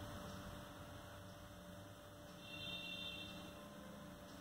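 Faint steady electrical hum over quiet room tone, with a brief faint high-pitched tone a little past the middle.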